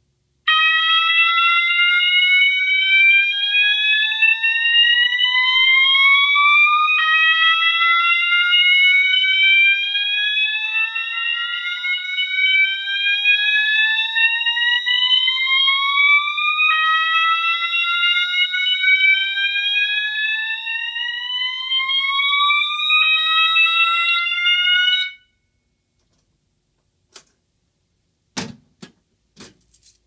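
Fire alarm system's notification appliances sounding after a manual pull station is activated: a slow-whoop tone that rises in pitch over several seconds, drops back and rises again, over a steady high tone. It cuts off abruptly about 25 seconds in.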